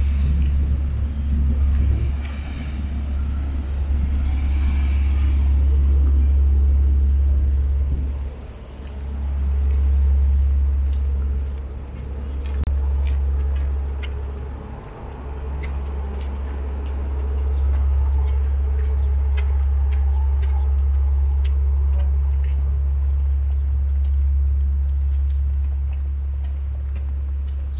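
Low rumble of wind buffeting the microphone, dipping away briefly a few times. In the second half come light, irregular footsteps on concrete steps.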